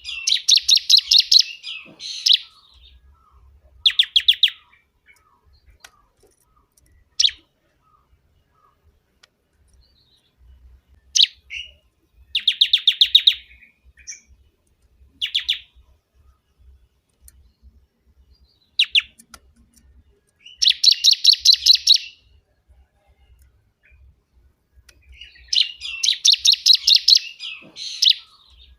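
Bar-winged prinia (ciblek kebun) singing loudly: bursts of fast, rapidly repeated high notes about a second long, coming every few seconds, with short single sharp notes between them.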